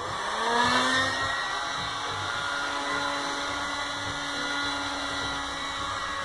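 Electric heat gun switched on: its fan motor rises in pitch as it spins up over the first second, then runs with a steady whine and a rush of air. It is heating a motorcycle fork's outer tube to expand the metal so the fork oil seal can be pulled out more easily.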